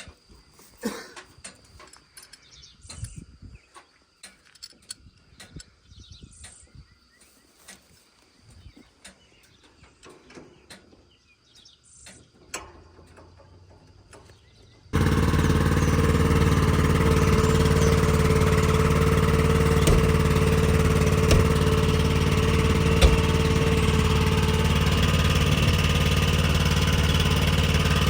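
Faint scattered clicks and taps, then about halfway a tractor engine cuts in abruptly and runs loud and steady at a constant pitch, with a steady whine over it for several seconds.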